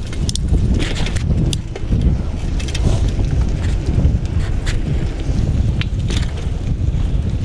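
Wind buffeting the microphone of a camera on a moving bicycle, a steady low rumble, with a few sharp clicks and rattles from the bike as it rolls over the paved path.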